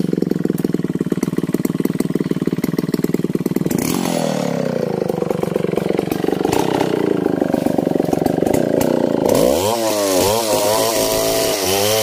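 Large two-stroke chainsaw idling with an even chugging for about four seconds, then throttled up, its pitch sinking as it settles under load. From about nine seconds in, the engine speed swings up and down over and over as the bar rips lengthwise through a coconut trunk.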